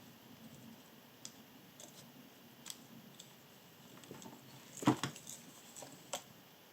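Small sharp clicks and taps of hand tools being handled during motherboard soldering work, with one louder knock about five seconds in and a few lighter clicks after it.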